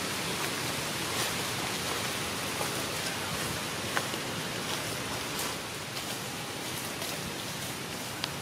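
Steady outdoor hiss of background noise, with two small clicks, one about four seconds in and one near the end.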